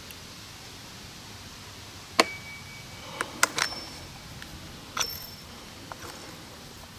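Sharp metallic clinks, about five in a few seconds, some with a brief ringing tone: pliers and the steel retaining clip on a Poulan chainsaw's newly fitted clutch drum.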